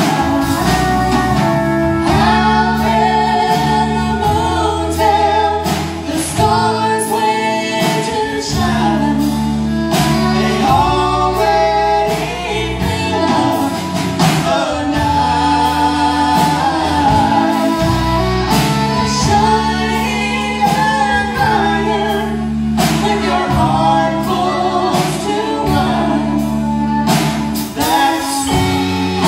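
Live country band performing a man-and-woman duet, the two voices singing over fiddle, electric guitars and drums.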